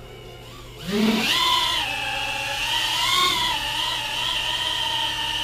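KingKong/LDARC Tiny GT8 micro FPV quadcopter's four brushless motors spinning up about a second in as it takes off, then a steady high propeller whine as it hovers, the pitch wavering slightly with throttle.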